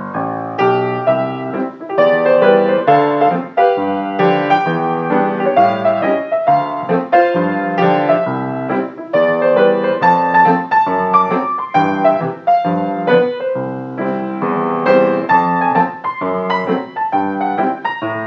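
Background piano music, notes and chords struck at an even pace.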